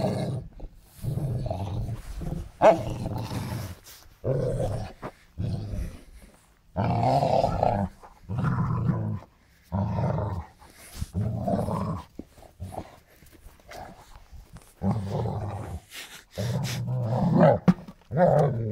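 German Shepherd growling in about a dozen short bursts, each up to a second or so long, while tussling with an old car tyre, angry at it.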